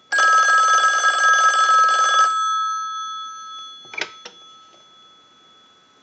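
500-type rotary desk telephone's bell ringer ringing once for about two seconds on a test ring cycle, then dying away. About four seconds in come two clicks as the handset is lifted off the cradle.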